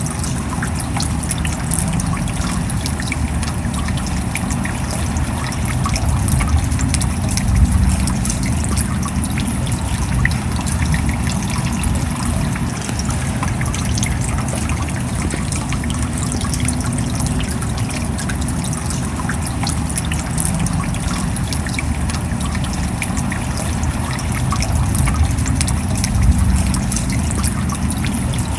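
Steady rain: a continuous wash of water noise with a heavy low rumble, dotted with many small drop impacts, swelling slightly twice.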